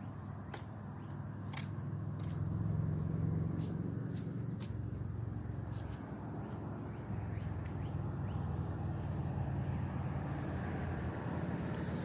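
A low, steady engine rumble that swells and eases, with a few light clicks near the start.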